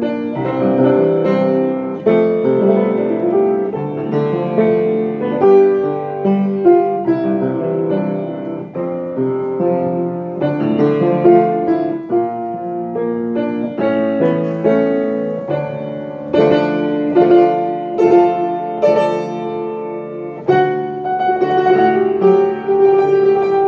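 Solo piano played with both hands: a melody over chords, many notes held and overlapping.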